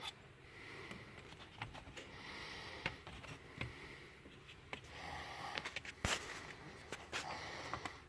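Hands pushing the rubber bushings out of a car's gear shifter: faint rubbing and handling noise with a few sharp clicks, the loudest about six seconds in.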